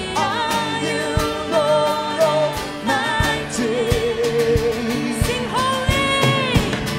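Live church worship music: a singer's voice holding long notes with vibrato over a band with steady drum beats.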